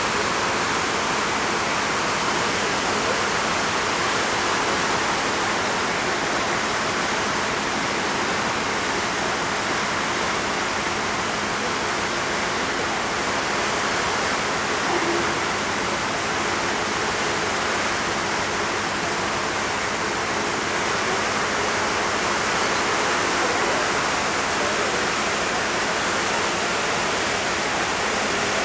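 Steady rushing of seawater churned up by the car ferry's propellers as it pulls away from the quay, with a faint low hum underneath.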